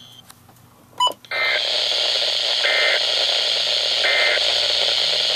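Three short bursts of NOAA Weather Radio SAME end-of-message data tones, each a fraction of a second long and about a second apart, over the receiver's steady static hiss. A click about a second in comes just before the hiss comes up.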